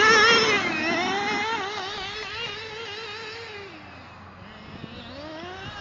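Two-stroke glow-fuel nitro engine of a 2WD radio-controlled truck revving hard with a rapidly wavering pitch, loudest at first and fading as the truck drives away; the pitch sags about four seconds in and climbs again near the end.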